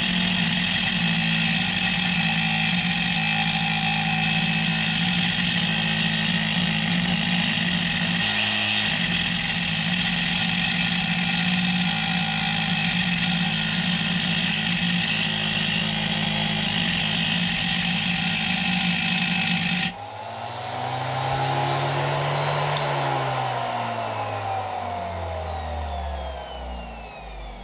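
Dremel rotary tool with a thin diamond-tipped cutting disc running at speed and cutting through metal, a steady high whine with a gritty grinding edge. About two-thirds of the way in it cuts off suddenly, and the spinning disc winds down, its pitch falling over several seconds.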